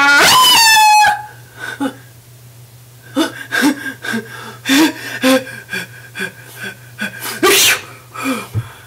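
A person building up to a sneeze: a loud drawn-out vocal "ah" in the first second, then short gasping breaths, then a loud sneeze about seven and a half seconds in.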